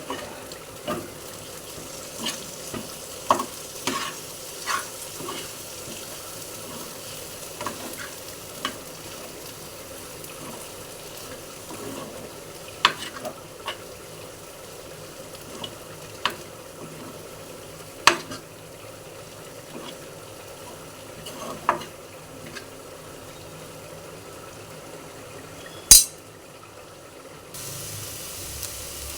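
Food sizzling as it fries in a pan while it is stirred, with sharp clinks of the spoon or spatula against the pan every second or two. The loudest clink comes near the end, and the sizzle then grows louder.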